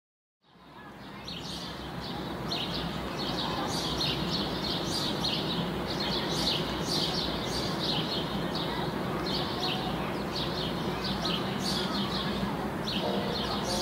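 Birds chirping in short, repeated high calls over a steady background hum, fading in at the start.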